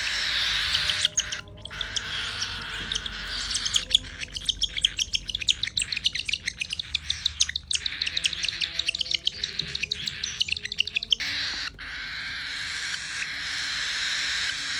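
A flock of cockatiels chirping and squawking as they squabble over food, with a rapid run of short, sharp calls from about a second in until about eleven seconds in, over steady background chatter.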